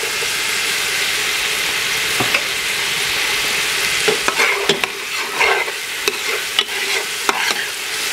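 Bacon, hog jaws, onion, bell pepper and freshly added green onion sizzling steadily as they fry in oil in a pot. About four seconds in, a metal spoon starts stirring, scraping and clinking irregularly against the pot.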